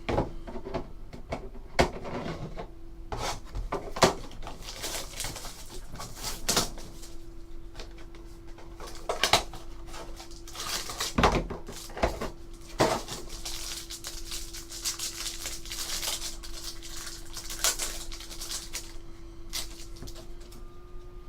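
Trading cards and a pack being handled on a table: sharp taps and clicks as cards are set down, and stretches of crinkling as the next pack is opened. A steady faint hum runs underneath.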